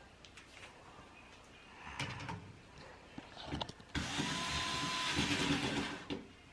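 Electric screwdriver motor whirring for about two seconds near the end, driving a screw to fasten a ceiling fan blade, after a shorter burst and a few small clicks of handling.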